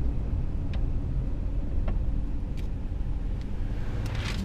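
Steady low rumble of a vehicle driving on a paved road, heard from inside the cabin, with a few faint clicks and a short hiss near the end.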